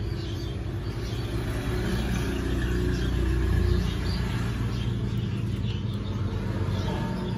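Steady low mechanical rumble of a motor running, with faint short high chirps now and then.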